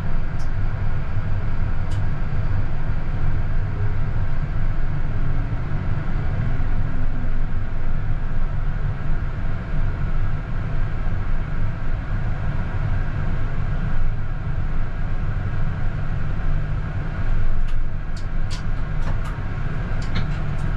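CAF Urbos 100 (15G) tram running along the track: a steady low rumble with a constant hum. Several sharp clicks come in the last few seconds.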